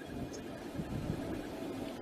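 Wind buffeting the outdoor microphone in gusts, swelling through the middle, with faint bird chirps over it.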